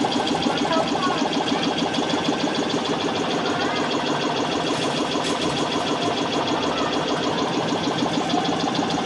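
Arcade ticket dispenser feeding out a long run of redemption tickets: a steady, rapid mechanical clatter of about a dozen clicks a second, with faint tones from arcade machines behind it.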